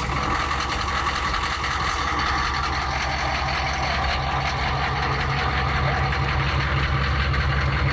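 Humvee's V8 diesel engine idling steadily, its exhaust coming out of a newly fitted deep-water fording exhaust stack.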